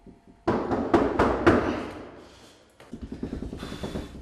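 Heavy banging on a door: a burst of loud blows about half a second in, fading over the next two seconds, then lighter knocks and rattling near the end.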